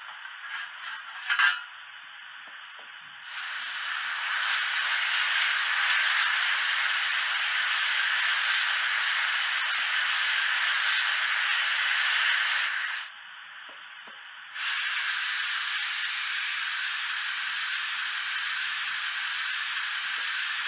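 Recorded steam hissing from a Hornby TTS sound decoder in a model Castle Class locomotive, played through its small speaker. A brief sharp knock about one and a half seconds in, then a louder hiss that drops back a little after 13 seconds and swells again about a second and a half later.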